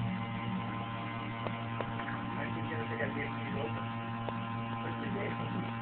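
Electric juicer motor running with a steady hum, with a few faint clicks on top.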